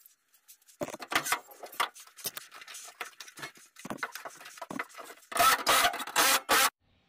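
A thin 1/16-inch aluminum side-rail strip being handled and pressed into place against an aluminum boat hull, giving irregular scraping and rubbing of metal on metal. The loudest scrapes come near the end.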